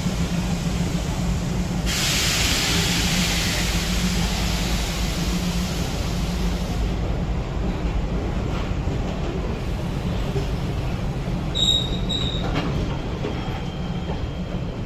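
Kaveri Express coach rolling out of a station at low speed, heard at an open coach door, with a steady low rumble. A loud hiss starts about two seconds in and lasts about five seconds. A brief high wheel squeal comes about two-thirds of the way through, with a few clicks of the wheels later on.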